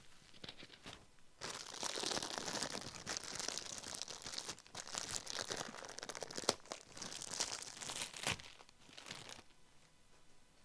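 Plastic wrapping crinkling as a replacement water-ionizer filter cartridge is unwrapped by hand, starting about a second and a half in and dying down near the end.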